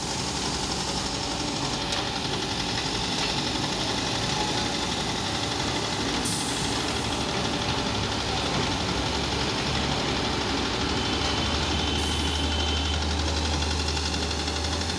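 Diesel engines of a tractor and a JCB backhoe loader running steadily at idle with a knocking clatter. A low engine note grows stronger about eleven seconds in.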